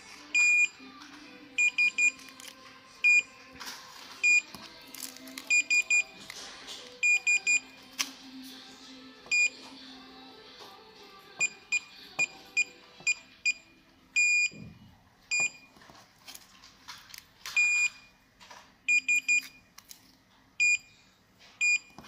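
Electronic access-control keypad beeping: short single beeps as keys are pressed and cards are held to the reader, with quick runs of three or four beeps in between.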